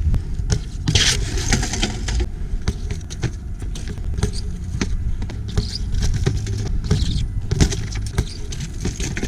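Wind rumbling on the camera microphone, with a BMX bike rolling on concrete and scattered sharp clicks and knocks.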